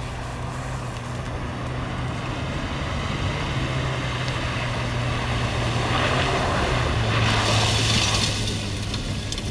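Fiat Panda 4x4 driving through a shallow pool toward the listener: a steady engine hum grows louder as it nears, and a rush of splashing water rises about six seconds in and dies away after eight as it drives out of the water.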